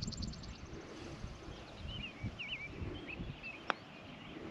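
Birds singing and chirping: a quick trill at the start, then a few warbling calls, over a low rumble. About three-quarters through comes a single sharp click, a putter striking a golf ball for an eagle putt.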